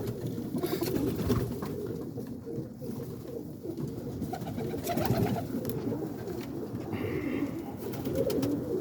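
Domestic roller pigeons cooing in their loft: a continuous low cooing from several birds at once.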